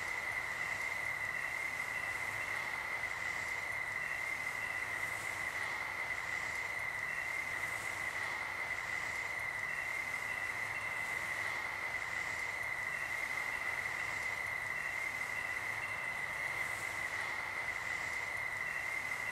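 Crickets trilling: one steady, unbroken high trill over a hiss, with fainter short chirps coming and going.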